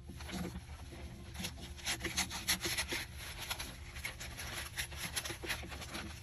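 Scissors cutting through a sheet of wrapping paper, with the paper crackling and rustling irregularly as it is handled and sliced.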